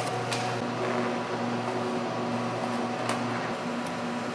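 Steady mechanical hum, with two light clicks, about a third of a second in and again about three seconds in.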